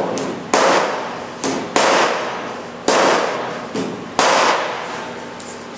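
A hammer striking a wooden paint stick held against a car's steel deck filler panel: five sharp blows at uneven intervals, each ringing out briefly. The blows tap down a panel edge that sits a little high.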